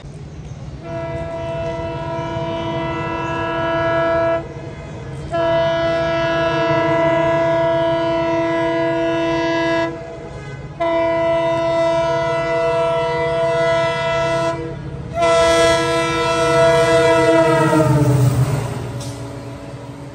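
Locomotive horn blowing four long blasts over the steady rumble of a passing train. The last blast slides down in pitch before it stops, as the locomotive goes past.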